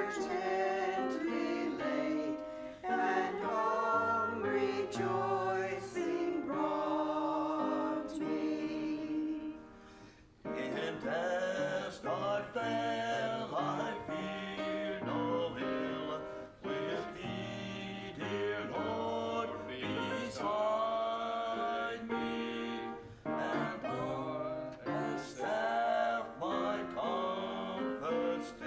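Church choir singing, with a brief pause about ten seconds in.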